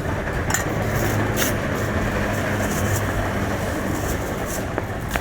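Street traffic noise, with a vehicle's engine running close by as a steady low hum.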